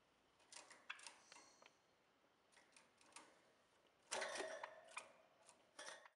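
Java sparrows in a wire cage: faint, scattered clicks and ticks, with a brief louder burst about four seconds in.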